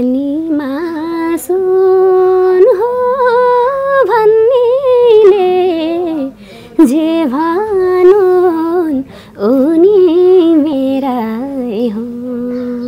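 A woman singing a Nepali folk-style melody unaccompanied, in long held notes with ornamented turns, in three phrases with short breaths between.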